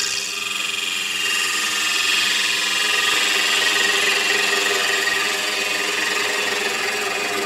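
Wood lathe running while a turning tool cuts soft cedar of Lebanon wood, a steady hiss of shavings over the lathe's hum.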